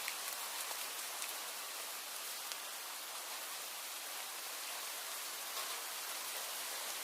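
Steady rain falling, an even hiss with scattered ticks of single drops landing close by.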